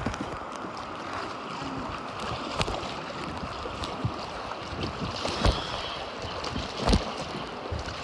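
River water flowing and lapping against an inflatable raft, with wind buffeting the microphone. A few sharp thumps cut through, the loudest about seven seconds in.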